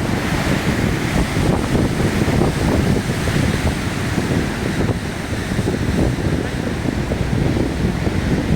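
Strong wind blowing on the microphone over heavy surf breaking, a steady rumbling noise without a break.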